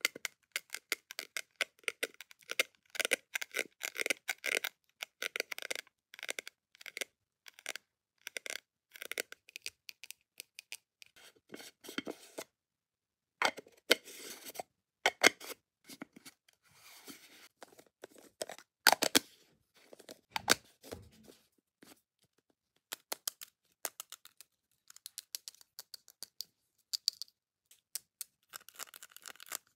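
Long fingernails tapping and scratching on small cosmetic jars and lids (a cut-glass lid, a clear jar, a glossy red round jar), making rapid runs of light clicks with short pauses. A soft low thump about two-thirds of the way through.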